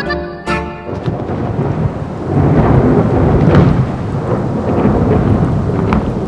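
Rolling thunder over steady heavy rain, swelling about two seconds in. Accordion music cuts off in the first second.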